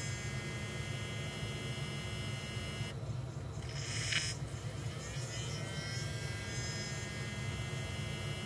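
BMW X6's electric coolant pump running during a cooling-system bleed cycle: a steady electric hum with a high whine. The whine breaks off about three seconds in and climbs back up in pitch as the pump speeds up again.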